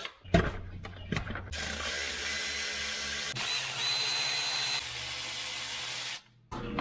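Milwaukee cordless electric ratchet running for several seconds, spinning out a bolt that holds the GTI's boost tube, after a few light clicks of tool handling. A thin high whine rises out of it for about a second and a half in the middle.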